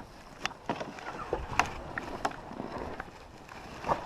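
Several sharp, irregular clicks and crunches, about one or two a second.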